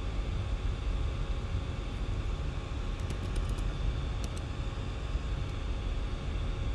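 Steady low rumbling background noise with a few faint, scattered keyboard keystroke clicks as a command is typed.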